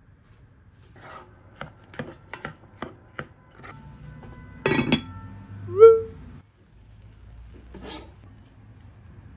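Kitchen handling sounds around a pot of rice on the cooktop: a run of light clicks and taps, then a louder clatter a little past the middle, followed by a short rising tone, the loudest sound.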